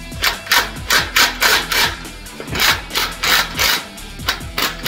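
Background music with a bass beat and quick, sharp hissing strokes, about three a second.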